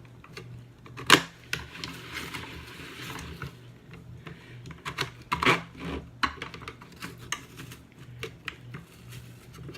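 Hand-cranked apple spiralizer working through an apple: irregular clicks and knocks of the crank and blade, with a louder knock about a second in and a scraping rasp of the blade through the fruit a little later.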